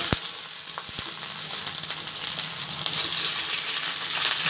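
Raw chicken pieces shallow-frying in a little hot oil: a loud, steady sizzle with fine crackling, and a couple of light knocks near the start.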